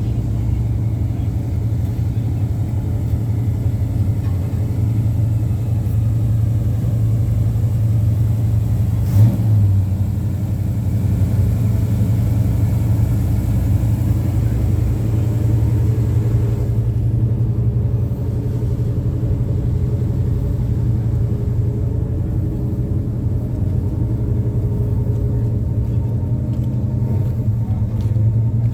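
A car engine running at a steady idle, a deep continuous rumble, with one short thump about nine seconds in.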